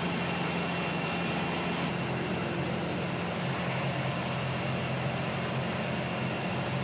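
Olive oil extraction machinery running, with centrifuges such as the vertical separator spinning: a steady low hum with a faint high tone over a constant wash of noise.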